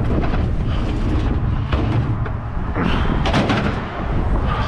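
Wind buffeting the microphone in a heavy low rumble, with a short spell of knocking and scraping about three seconds in.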